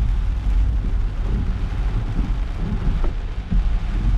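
Car driving on a wet road in rain: a steady deep rumble with an even hiss of rain and water from the tyres.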